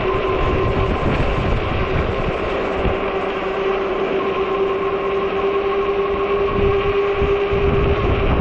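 Wind gusts buffeting the microphone while riding a 48-volt fat-tire e-bike, over a steady mid-pitched whine from the moving bike.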